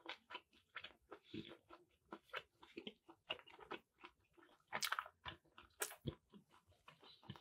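A person chewing and biting a tough, dry piece of chicken in sauce: faint, irregular mouth clicks and smacks, slow and drawn-out because the meat is so tough, with a few sharper bites about five and six seconds in.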